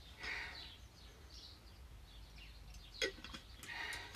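Faint breathing after exercise, two soft breaths about three seconds apart. A single sharp click a little after three seconds comes as the cap of a stainless steel water bottle is worked open.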